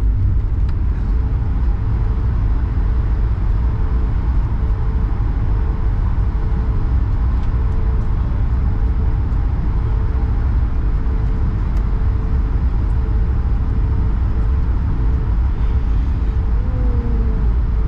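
Cabin noise of an Airbus A220 taxiing: a steady low rumble with a steady hum from its Pratt & Whitney PW1500G geared turbofan engines at low power. A short falling tone sounds near the end.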